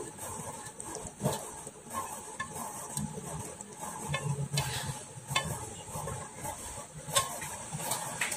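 A spatula scraping thick, oily sambal sauce out of a wok onto a serving plate, with irregular scrapes and a few light knocks against the pan.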